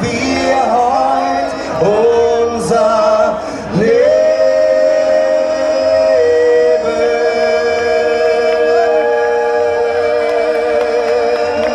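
Several voices singing a cappella in close harmony on 'la la' syllables, then settling about four seconds in on one long held final chord. Near the end one held note wavers.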